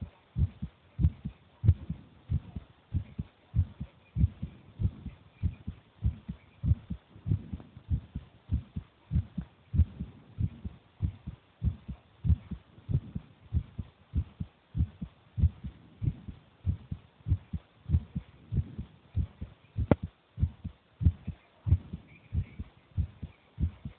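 A child's heartbeat: a steady, regular rhythm of low thumps in lub-dub pairs, sounding like a recording through a stethoscope or heartbeat monitor.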